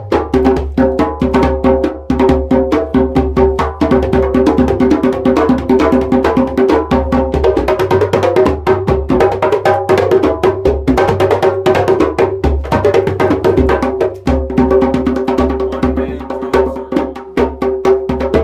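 A set of djembe hand drums played with bare hands in a fast, dense, continuous rhythm, the strokes sounding at several different drum pitches.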